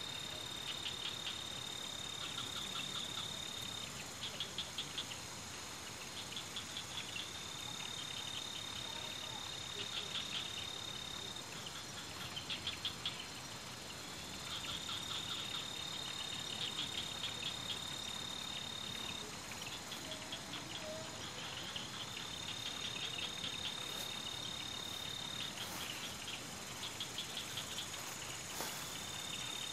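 A night-singing insect calling: a steady high trill held for about four seconds, then a run of rapid pulses, the cycle repeating about every seven seconds. A steady hiss runs underneath.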